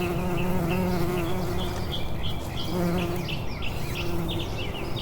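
Honeybees buzzing: a steady hum that fades and swells, with short high chirps repeating several times a second through much of it.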